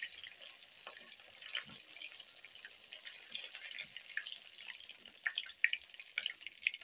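Coated whole potatoes deep-frying in hot oil on a low flame: a steady sizzle with many small scattered crackles and pops.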